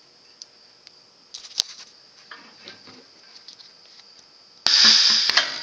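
Light clicks and taps of a .22 LR brass case being handled into the de-rimming die. About four and a half seconds in, the 3 1/4 inch pneumatic air cylinder fires with a sharp click and a sudden loud rush of compressed air as it drives the ram through a stroke.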